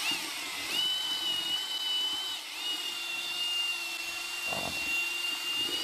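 Powerful drill with a stirring paddle bit running steadily, mixing thinset mortar with water: a high, even motor whine that dips slightly about two and a half seconds in.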